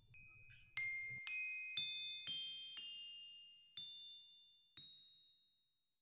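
A short closing music jingle of bell-like struck notes, about seven, each ringing out and fading: five in quick, even succession, then two more spaced further apart, the last dying away near the end.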